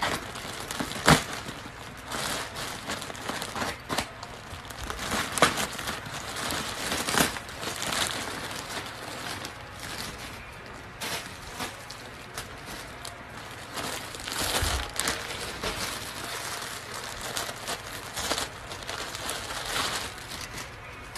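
Plastic mailer bag and clear plastic bags crinkling and rustling as a parcel is opened and unpacked by hand, with irregular crackles throughout; the loudest snap comes about a second in.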